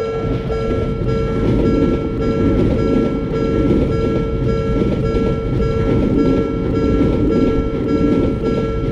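Japanese railroad crossing bell (kan-kan) ringing in a steady rhythm of about two to three strikes a second while a train runs past, its rumble and wheel clatter loud under the bell.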